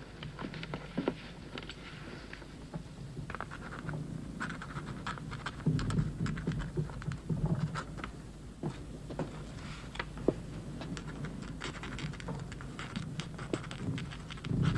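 Quill pen scratching on paper in short, irregular strokes as a document is signed, over a faint low rumble that swells now and then.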